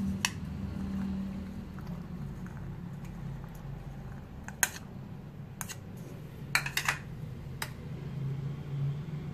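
A metal spoon clicking against a bowl as pomegranate seeds are pushed out of it: a few sharp, separate clicks, with a quick cluster about two-thirds of the way in, over a low steady hum.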